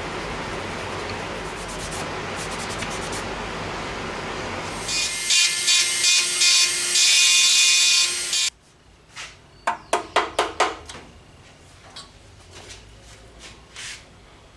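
Flexible-shaft rotary tool grinding on the steel plate of a helmet. It sets in as a loud, bright rasp about five seconds in, first in short strokes and then steadily, and cuts off abruptly. Before it there is a steady hiss with a low hum, and after it a quick run of sharp clicks and knocks.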